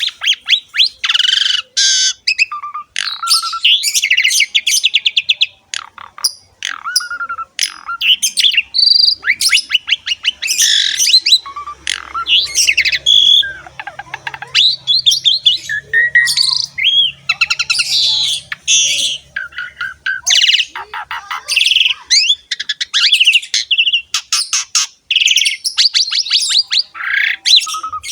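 Jalak suren (pied starling) singing continuously: a long, varied song of rapid chattering runs, rising and falling whistles and harsh squawky notes.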